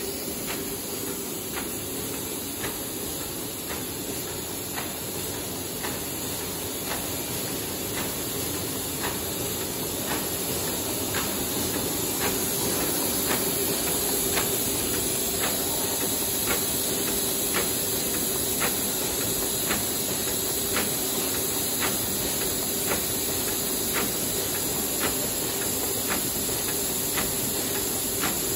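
HBJ-D800 paper hamburger box forming machine running: a steady hiss and hum with a regular clack of the forming mechanism, roughly one to two a second. It gets louder about a third of the way in.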